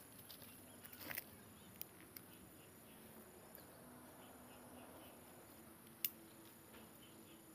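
Faint outdoor ambience: a steady high-pitched insect hum, with a few light clicks and rustles from a wire-mesh trap being carried and set down in the brush, the sharpest click about six seconds in.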